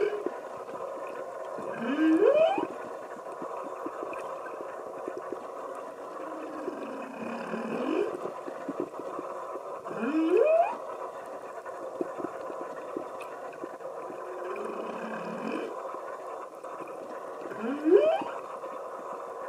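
Humpback whale calls heard underwater: about five rising whoops, each sweeping upward in pitch over about a second, spaced a few seconds apart, over a faint steady crackle.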